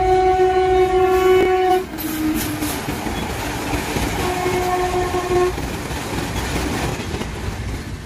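Train horn sounding a long blast that cuts off about two seconds in, then a shorter, fainter blast around four seconds in, over the steady rumble and wheel clatter of a passing train.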